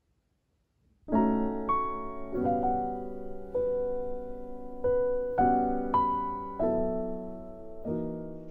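Background music: a piano playing slow chords. It comes in about a second in, after near silence.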